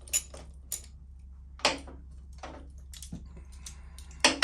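Scattered sharp clicks and clinks of hand tools and small metal parts being handled, about half a dozen of them, with the loudest a little before halfway and near the end.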